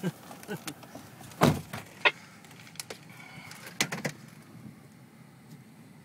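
Several sharp knocks and rubs from a handheld phone being moved and handled, over a faint steady hiss inside a vehicle cab. The knocks fall about a second and a half in, near two seconds and around four seconds.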